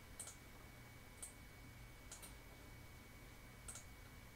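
Near silence with about four faint computer mouse clicks spread over a few seconds, over a low steady background hum.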